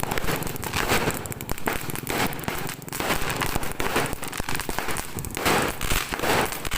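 Fireworks and firecrackers going off in a dense, continuous crackle of rapid pops and bangs.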